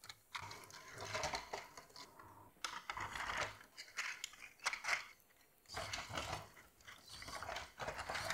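Hard plastic clattering: 3D-printed track links clicking, knocking and rattling against each other and the frame in an irregular run as the track chain is handled and fitted onto the crawler.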